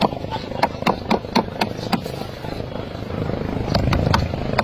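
Hammer blows on a wooden boat's planks, sharp strikes coming about three to four a second, with a short pause partway through before the hammering resumes.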